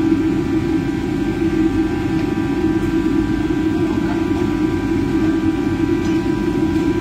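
Steady, loud drone of a commercial kitchen's ventilation, most likely the exhaust hood fan, with a few faint steady whining tones above it.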